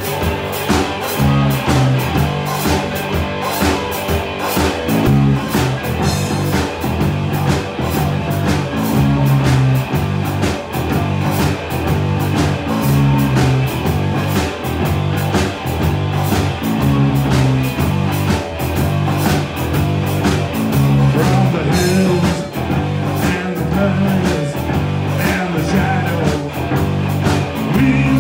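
Live rock band playing through a PA: electric guitar, electric bass and a drum kit, with steady driving drums and a repeating bass line.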